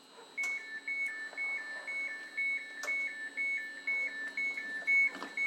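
Electronic two-tone railway warning beeper, alternating quickly between a higher and a lower beep, about two high–low pairs a second, starting about half a second in.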